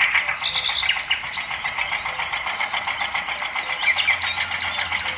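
Small electric motor and plastic gearbox of a toy tractor running under load as it hauls a tanker trailer through mud, a fast, even clatter.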